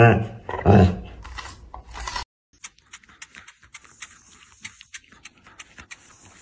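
A husky's deep, drawn-out vocalising ends with a pitch slide, and a short second call follows about a second in. After that come faint scattered clicks and rustling from a dog moving under a blanket.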